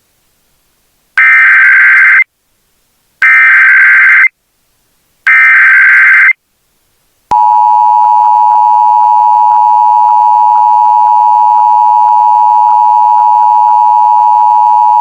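Emergency Alert System tones: three buzzing data bursts of the SAME header, each about a second long and about two seconds apart. They are followed a second later by the steady two-tone EAS attention signal, held for about eight seconds.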